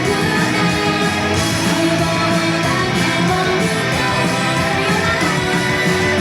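Loud pop-rock idol song with electric guitar and a steady band backing, with some singing over it.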